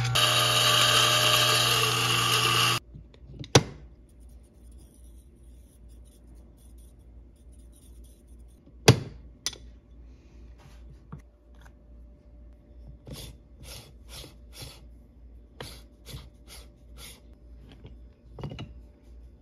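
DF64E single-dose flat-burr coffee grinder running and grinding espresso beans, its motor cutting off suddenly about three seconds in. After that come a few sharp knocks, then a quick run of about ten light taps and clicks as the portafilter of grounds is handled.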